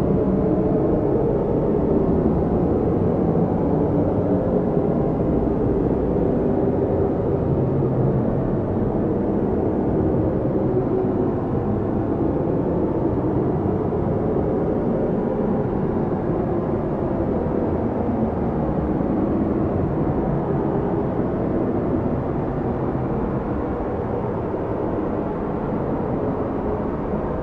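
Strong wind of a snowstorm blowing steadily, a deep rushing noise that swells and eases slowly.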